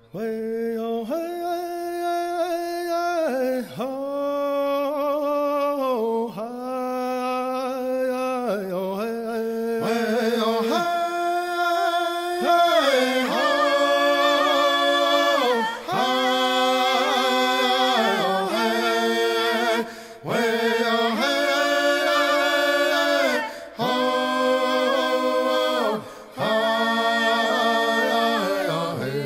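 Background music: unaccompanied singing in long held notes that step in pitch, sung in phrases with short breaks between them.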